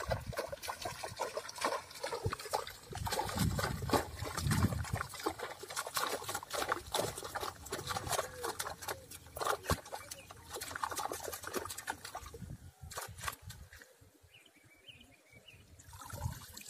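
Water splashing and trickling as a fine-mesh hand net is worked through shallow pond water at the bank, with many small crackling splashes. The splashing dies down for a few seconds near the end.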